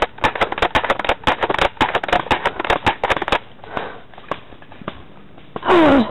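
Airsoft gun fired in quick, irregular shots, sharp cracks several a second for about three and a half seconds, with a few more shortly after. Near the end a woman gives a loud pained grunt with falling pitch as she is hit.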